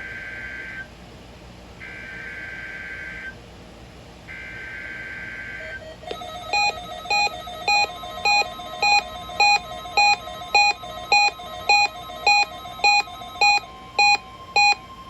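NOAA Weather Radio SAME header: the tail of one burst and then two more bursts of screeching digital data, each about a second and a half long, encoding the Required Weekly Test. From about six seconds in, an electronic alert beeps rapidly, about two beeps a second, over a faint steady tone.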